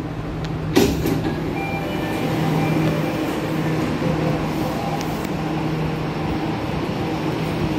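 Jakarta MRT train and underground station ambience: a steady electrical hum, with a sharp clunk about a second in as the train's sliding doors open.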